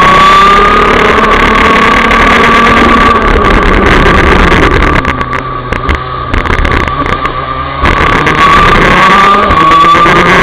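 Rotax DD2 125 cc two-stroke kart engine running at high revs, heard from onboard the kart, with a steady high engine note. About five seconds in it drops off throttle for a tight corner and goes quieter, then picks up again sharply nearly three seconds later.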